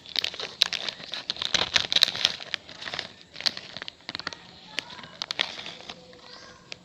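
Plastic snack bag crinkling and rustling as it is handled, with irregular crackles that thin out near the end.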